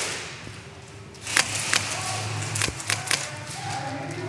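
About five sharp, single cracks of airsoft fire, two close together about a second and a half in and three more near the three-second mark, echoing in a large hall and heard over a low steady hum.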